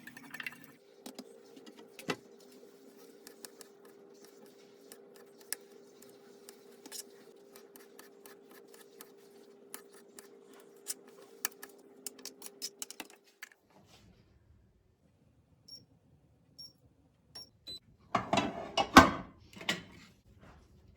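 Kitchen handling sounds: many light clicks and taps over a steady hum, which stops about two-thirds of the way through. Near the end comes a short, loud rustling burst.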